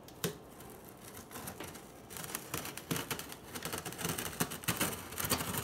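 Scissor point dragged along the taped seam of a cardboard box, slitting the packing tape. A single sharp click comes just after the start. A run of quick, scratchy rasps and ticks follows from about two seconds in.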